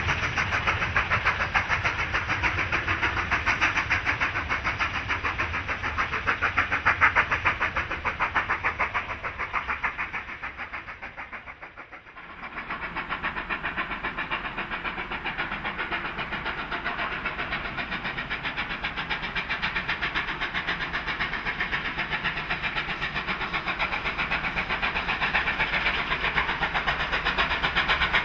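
Steam locomotive 3801, a NSW C38-class 4-6-2, working a passenger train with a fast, steady beat from its exhaust. The sound fades out about twelve seconds in, then the exhaust beat returns and grows louder as the locomotive approaches.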